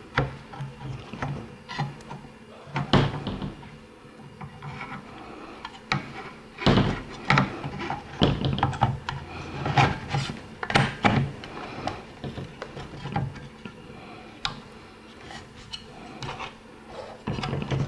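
A scope's side-rail mount being worked onto a PSL rifle's Dragunov-style side rail: irregular metal scrapes, clicks and knocks as the tight-fitting mount slides on and is locked down.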